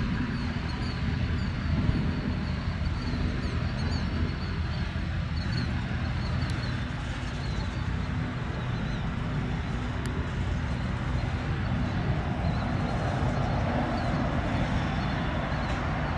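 A large engine running steadily with a low rumble, and small birds chirping over it.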